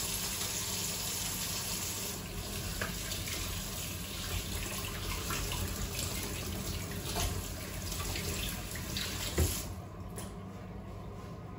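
Kitchen tap running into the sink as hands are washed under the stream, with a few small knocks; the water shuts off about ten seconds in.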